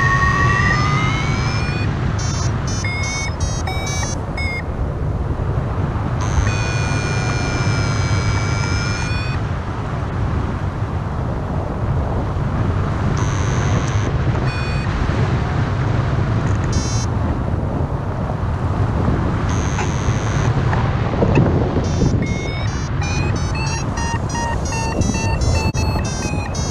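Paragliding variometer sounding over steady wind rush on the microphone. It gives spells of quick repeated beeps and longer tones that slide up and down in pitch, the beeps marking that the glider is climbing in rising air.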